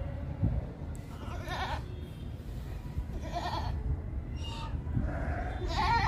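Bantam goats bleating, about three short calls a couple of seconds apart.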